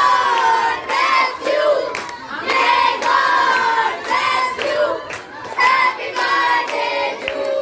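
A group of children singing and shouting together in chorus, with hands clapping along.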